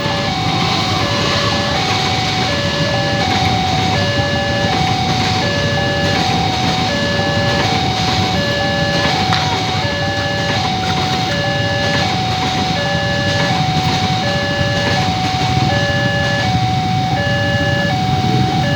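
Railway level-crossing warning siren, a smaller replacement unit, sounding a two-tone electronic alarm: a low and a high note alternate, each about a third of a second, without a break. Underneath is the steady rumble of a train passing the crossing.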